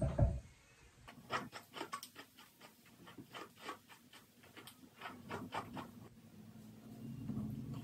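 A low thump right at the start, then a run of soft, short rustles, a few a second, as hands run and pull through long, thick wavy hair; the rustles die away about two seconds before the end.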